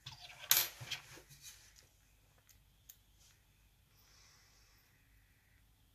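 Small metal lock parts of a Sparrows Revolver practice lock clicking and rattling as a pin stuck in its chamber is worked at. A short scraping rattle with several sharp clicks comes in the first two seconds, and one more click comes near three seconds.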